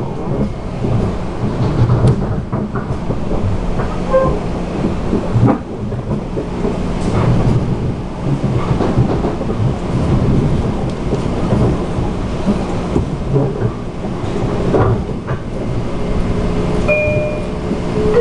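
Metro-North commuter train running at speed, heard from inside the car: a steady rumble of wheels on the rails, with a few sharp knocks from the track.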